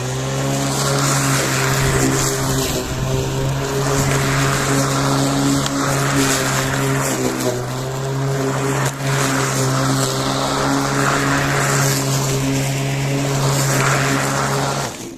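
Makita DLM330 18V cordless lawn mower's motor and blade spinning up and running with a steady whine, dipping slightly in pitch about halfway, then switching off near the end.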